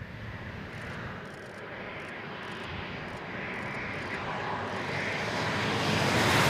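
A passing car's engine and tyre noise, growing steadily louder as it approaches and loudest as it goes by near the end.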